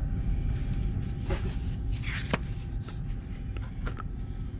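Stiff paper menu being unfolded and handled, rustling and crinkling in a few short bursts, loudest a little over two seconds in, over the steady low rumble of an Intercity 125 passenger carriage.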